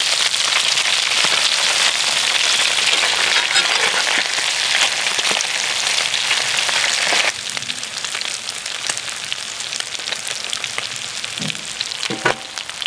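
Shemaya fish pan-frying in hot oil with a dense, crackling sizzle; the fish are fried through and crisp, almost done. About seven seconds in the sizzle drops suddenly to a quieter crackle.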